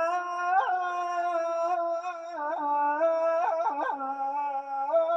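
A man's voice chanting the adhan, the Islamic call to prayer, holding one long unbroken note and ornamenting it with several quick melodic turns.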